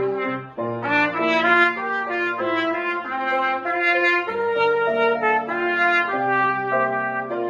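Trumpet playing a melody of held notes over grand piano accompaniment, with a brief pause in the trumpet line about half a second in.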